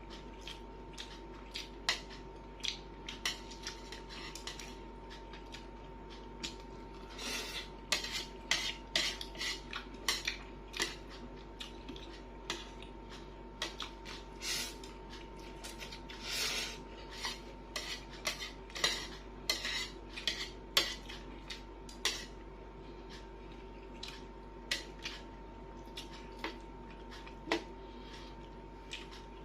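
Spoon and fork clinking and scraping against a plate while eating fried noodles: many sharp clicks, busiest through the middle stretch and sparser near the start and end.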